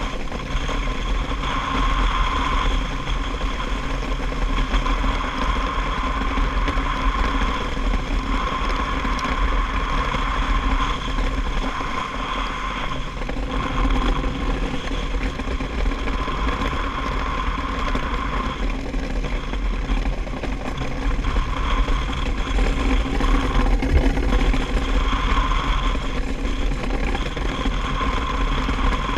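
DN iceboat's steel runners sliding over flat ice under sail: a steady rumble and hiss with a ringing tone, carried through the hull.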